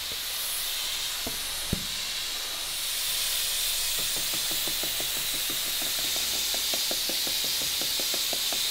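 Hand scraper blade scraping across stacked plywood panels in quick, even strokes, about six a second, over a steady hiss. A sharp knock sounds about two seconds in.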